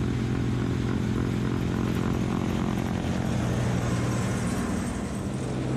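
Kubota LX2610 compact tractor's three-cylinder diesel engine running steadily, driving its front-mounted snowblower as it throws snow. A steady drone with a strong low hum.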